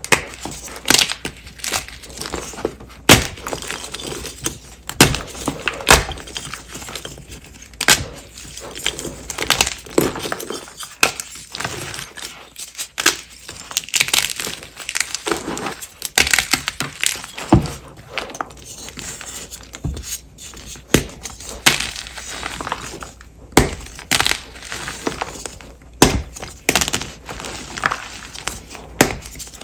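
Blocks of Ader gym chalk being snapped and crushed by hand. Sharp cracks come at irregular moments, often about one a second, as blocks break. Between them the broken pieces crunch and crumble.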